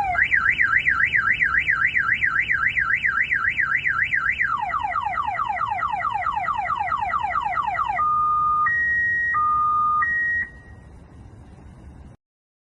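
Car alarm siren sounding and cycling through its tones. First comes a fast up-and-down warble, about four cycles a second. Then come rapid falling sweeps, and then a two-tone high-low wail before it cuts off suddenly about ten seconds in.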